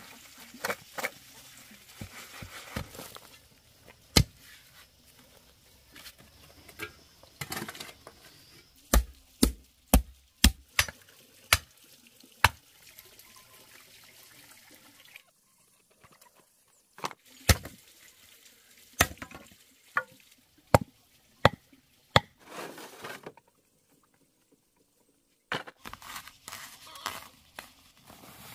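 Sharp knocks and taps, often in runs of several strikes about two a second apart, broken by short quiet gaps.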